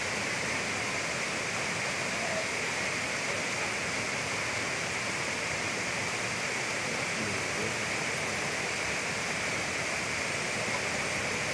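Floodwater rushing in a steady, unbroken roar of water noise.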